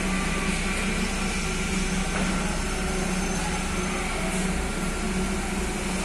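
Heavy construction machinery engines running at a steady drone, a constant low hum with no distinct knocks or bangs.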